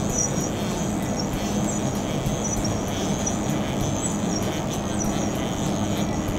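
Syil X5 CNC milling machine's table drive whirring steadily as the table is jogged slowly along its axis with the MPG handwheel, with faint regular ticks.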